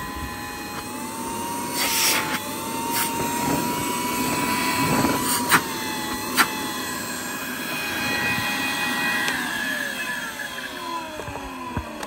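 Numatic Henry vacuum cleaner's late-1980s motor running with a steady whine, with a few sharp clicks from debris being blown out. About nine seconds in the whine falls away in pitch as the motor winds down.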